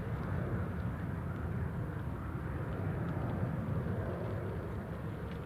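Bombardier Challenger 300 business jet's engines heard from the ground on departure: a steady, even rumble.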